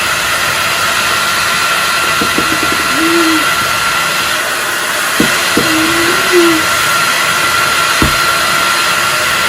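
Hair dryer blowing steadily on high, a constant rush of air with a thin steady whine. A couple of short low hums of a voice come through it about 3 and 6 seconds in, and there are a few brief taps.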